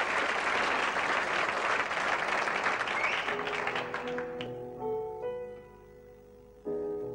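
Audience applause that dies away about four seconds in, as slow piano notes and chords begin.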